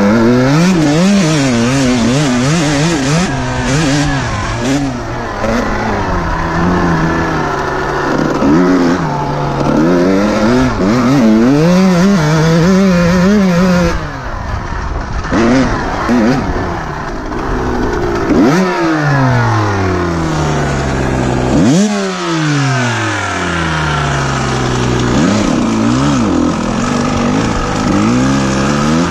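Kawasaki KX125 two-stroke motocross engine revving up and down as it is ridden, the pitch climbing and falling repeatedly, with the throttle snapped shut twice in the second half so the revs drop away sharply.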